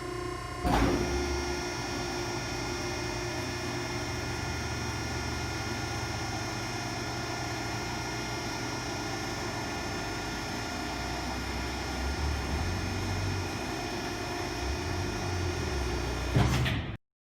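Wastequip 6030XHD vertical cardboard baler's hydraulic power unit, a 15 hp three-phase electric motor and pump, running with a steady hum and whine. A sudden clunk comes less than a second in, and another near the end just before the sound cuts off.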